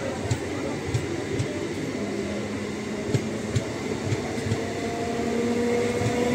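EMU local train coaches rolling past on the adjacent track: a steady rumble with scattered wheel clicks over the rail joints, and a low hum that comes in about two seconds in and rises a little.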